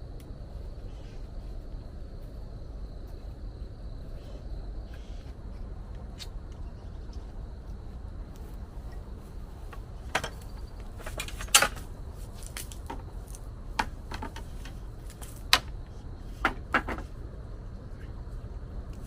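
A series of sharp knocks and clicks in the second half, over a steady low rumbling background with a faint thin high tone.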